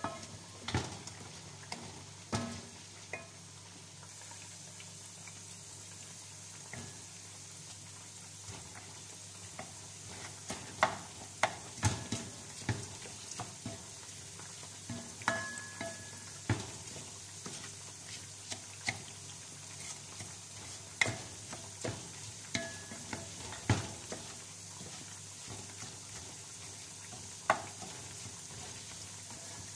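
Wooden spatula stirring raw rice grains as they fry in a little oil in a stainless steel pot. A steady sizzle runs under irregular knocks and scrapes of the spatula against the pot, which come more often in the second half.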